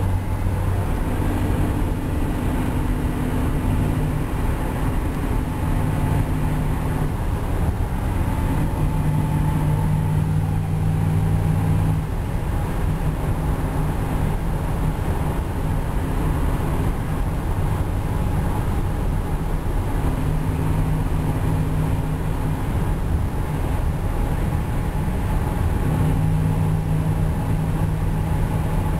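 A car cruising on the highway: steady tyre and road noise from Yokohama Avid tyres, under the low drone of a Flowmaster aftermarket exhaust that swells and fades every few seconds.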